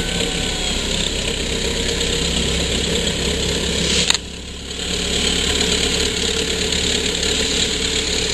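A boat's engine running steadily under way, with the rush of water along the hull. A single sharp knock comes about four seconds in, and the sound dips briefly after it.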